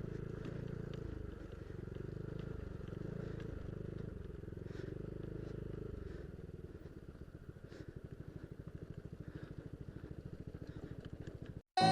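Yamaha Aerox scooter's single-cylinder engine running, then settling into an even pulsing idle in the second half. It cuts off suddenly near the end.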